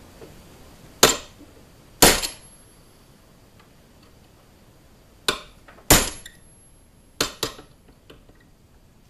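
A hammer tapping a drift punch against a 1911 pistol's rear sight to nudge it sideways in the slide's dovetail until it is centred: about six sharp metallic taps at uneven intervals, some following close on one another, each with a brief ring.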